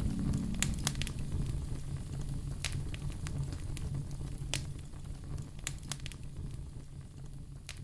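Fireplace wood fire crackling: scattered sharp pops and snaps over a low steady rumble, the whole growing gradually quieter.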